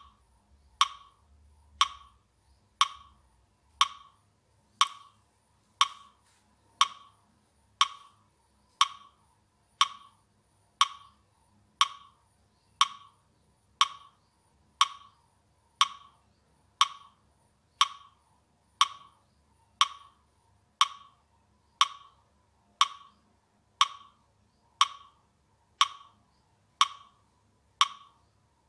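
Metronome ticking with a sharp wood-block click, steady at about one beat a second: the pacing beat by which the breaths are counted in and out.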